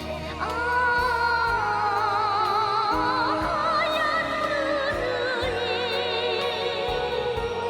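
North Korean pop song: a high voice holding long notes with heavy vibrato over a backing band with a moving bass line. A new held note begins about half a second in.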